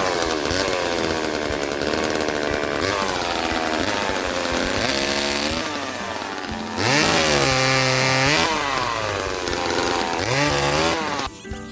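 1976 Homelite Super 2 two-stroke chainsaw running at high revs while cutting wood, its pitch sagging and climbing again and again as the chain bogs in the cut and frees up. The saw cuts off suddenly near the end.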